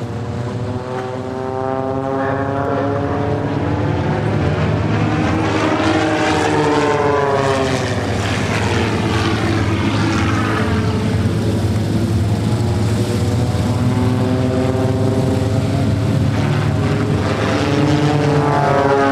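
Propeller airplane engine droning steadily as the plane flies past, growing louder over the first few seconds, with its tone sweeping up and down as it goes by.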